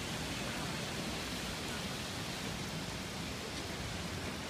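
Upper Punchbowl Falls on Eagle Creek pouring, a steady, even rush of falling water.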